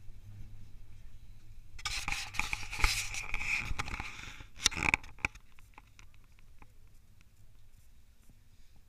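Electric train braking into a station, heard from inside the car. Under a low steady hum, a harsh metallic screech and hiss with clatter starts about two seconds in and cuts off about five seconds in. Faint clicks follow as the train nearly stops.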